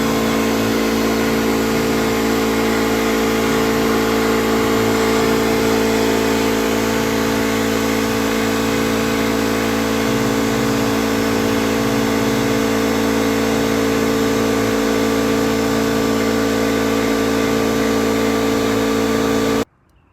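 AC TIG welding arc on cracked aluminum: a steady electrical buzz with a hiss, held unchanged through one long weld pass and cut off suddenly near the end.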